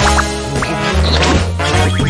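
Background music from a cartoon score, with sustained low bass notes under it.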